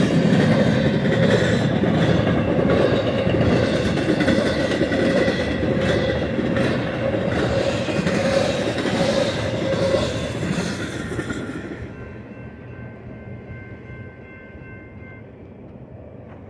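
Empty intermodal spine cars of a BNSF freight train rolling past, their wheels clattering over the rails. The sound fades away after about eleven seconds as the end of the train passes, leaving a few faint steady high tones.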